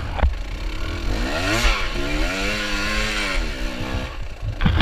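Dirt bike engine revving up and falling back twice, with a knock or clunk at the start and another near the end. The bike isn't moving: the rider first suspects a fried clutch and then finds the tire has come off the rim and is spinning.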